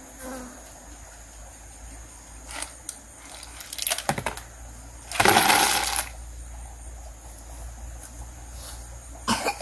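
Metal cookware and utensils clinking: scattered sharp clinks, a quick run of them about four seconds in, then a louder clatter lasting under a second just after five seconds, and two more clinks near the end.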